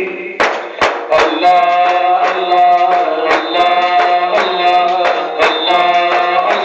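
Devotional Sufi song: a man singing into a microphone with held, chant-like notes over a hand drum beaten in a steady rhythm. The drum strikes come in about half a second in.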